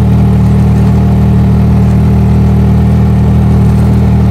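Motorcycle rickshaw engine running steadily at an even speed while moving along a road.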